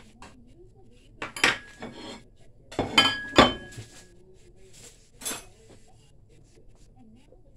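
A metal kitchen utensil clinking and scraping against a stainless steel pan: a few sharp strikes over about four seconds, the loudest pair about three seconds in, with a brief metallic ring.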